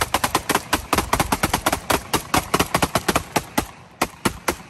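Rapid semi-automatic fire from a Draco AK-pattern pistol, about six shots a second, emptying a magazine. It stops about three and a half seconds in, and after a short pause a second string of pistol shots begins.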